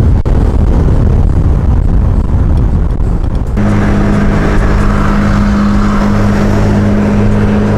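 Loud engine and road noise from a vehicle at speed, heard at an open side window with wind on the microphone. About three and a half seconds in, the rumble settles into a steady engine drone at constant revs.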